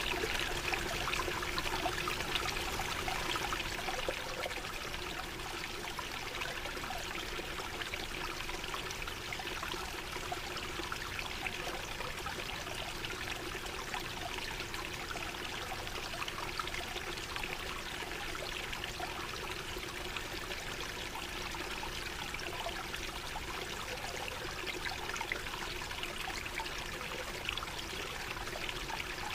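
Flowing water trickling steadily, a little louder in the first few seconds.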